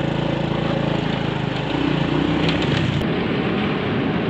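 Motorbike engine running as the bike sets off, its pitch rising about two seconds in. An abrupt cut about three seconds in gives way to wind rushing over the microphone.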